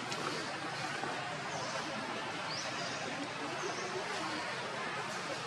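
Steady background hiss of outdoor ambience, with a few faint, short, high-pitched chirps scattered through it.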